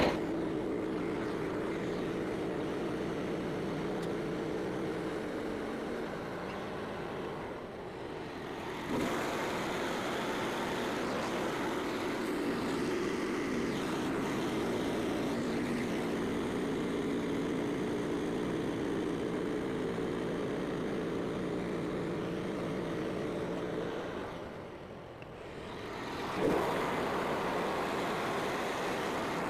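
Engine of a Frontier OS27 band sawmill running steadily. It drops off twice, about eight seconds in and again around twenty-five seconds, then revs back up sharply.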